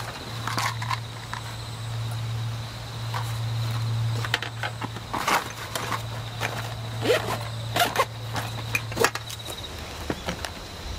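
Rustling and clicking as a black fabric gear pouch is handled and items are packed into it, with a faint steady insect-like high tone and a low steady hum behind that stops near the end.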